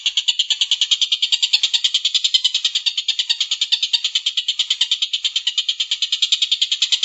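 A bird's long, unbroken rapid trill of high chattering notes, about ten a second, played as masteran song-tutoring audio.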